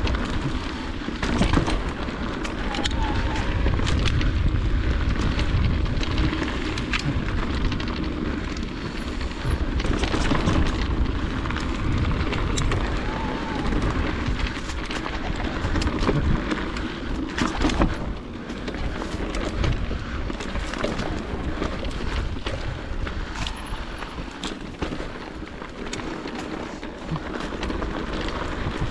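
Wind rumbling on an action camera's microphone, mixed with tyre noise and repeated rattling knocks from an electric mountain bike riding a rough trail.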